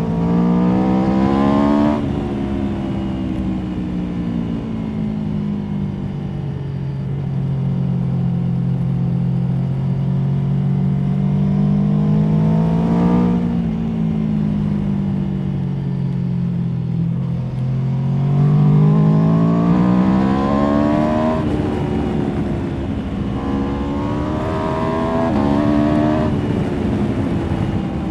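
Aprilia Tuono V4 motorcycle's V4 engine under way, its revs climbing and falling several times, with sudden drops in pitch about 2 s, 21 s and 25 s in, as on upshifts.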